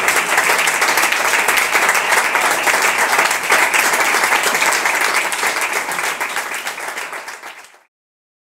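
Audience applauding, a dense patter of many hands clapping, which tails off and cuts off abruptly near the end.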